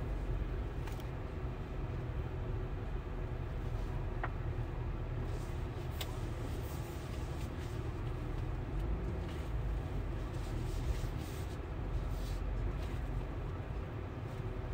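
Cabin sound of a 2022 GMC Sierra AT4-X rolling at walking pace: steady low rumble of its 6.2-litre V8 running near idle, with a few faint clicks.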